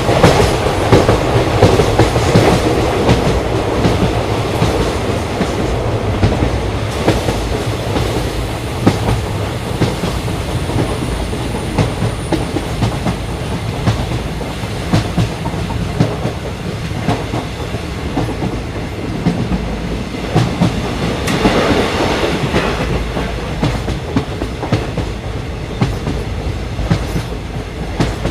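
ICF passenger coach running along the track: a steady rumble of wheels on rail with a continuous clatter of clicks from the rail joints. The clatter grows louder and brighter for a couple of seconds about 21 seconds in.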